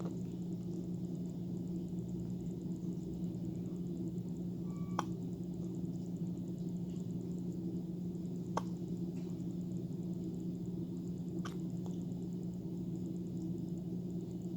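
Baby hiccupping: three short, sharp hiccups spaced about three seconds apart, over a steady low hum.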